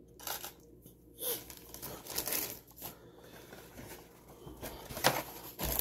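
Rustling and crinkling of packaging being handled, with scattered small clicks and a sharper knock about five seconds in.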